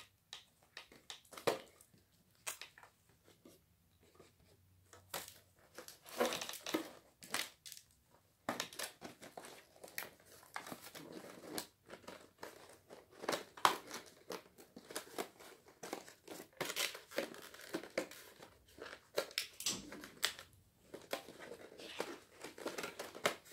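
Aluminium foil takeaway tray being handled and its card lid pressed down and crimped: irregular crinkling and crackling of the foil, sparse at first and busier from about eight seconds in.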